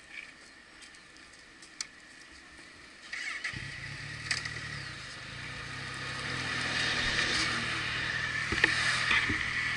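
A motorcycle engine starts up suddenly about three and a half seconds in and runs on steadily. A rushing noise grows louder over the last few seconds, with a few sharp clicks.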